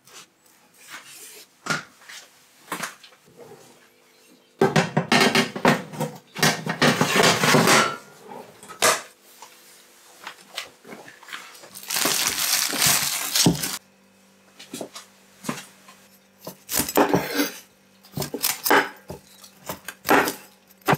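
Kitchen work sounds: scattered knocks and handling, two longer stretches of loud dense noise, then a chef's knife cutting broccoli on a wooden cutting board in a run of sharp strikes near the end.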